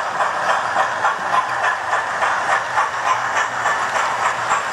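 Model railway trains running on the track: a steady rattle of wheels and motors with rhythmic clicking about three times a second as the wheels pass over the rail joints.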